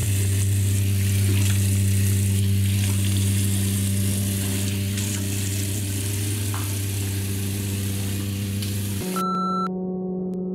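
Bathroom tap running into a sink, a steady hiss over a low steady hum; the water stops about nine seconds in and a microwave keypad gives a short electronic beep.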